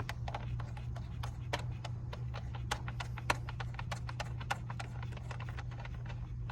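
Irregular light clicks and taps, two or three a second, of small nuts and hardware being threaded on by hand onto a car's keyless-go module mounting, over a steady low hum.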